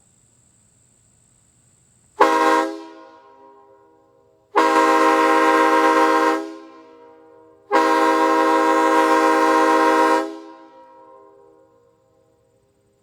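A homemade PVC replica of a Nathan K5HL five-chime train horn, heard from about 200 feet away. It sounds one short blast about two seconds in, then two long blasts of about two seconds each. Each blast is a loud, steady multi-note chord that dies away over about a second.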